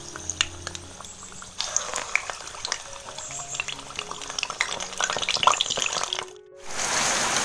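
Medu vada batter sizzling and crackling in hot oil in a kadhai, starting about one and a half seconds in. Near the end it cuts to the steady hiss of rain.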